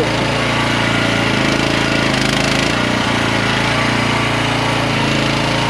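Small gasoline engine of a QH13R micro mini excavator running loud and steady while the machine digs hard, packed ground, its note shifting slightly about two seconds in.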